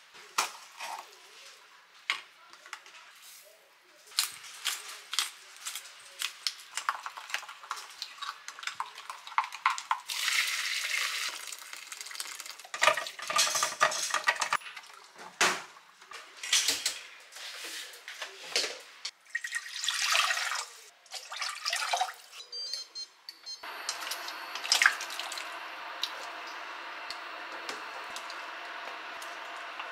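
Kitchen work sounds: a spoon clinking in a glass measuring jug, then blanched chicken pieces and their cooking water poured from a pot into a metal mesh sieve, with splashing water and pot knocks. About two-thirds of the way through a steady even noise sets in, with chopped vegetables knocking as they drop into a pot.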